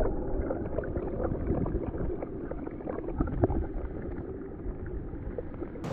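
Muffled underwater sound of shallow surf heard through a submerged camera: a steady low rumble of moving water with many small crackles and clicks, and the high sounds cut off. It fades slightly toward the end.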